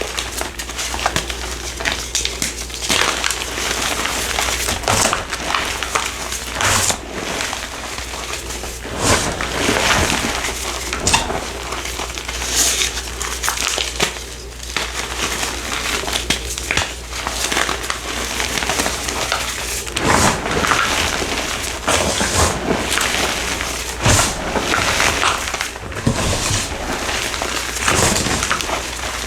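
A dry, crumbly block being crushed and crumbled close to the microphone into powder: a dense, continuous run of crunches and crackles.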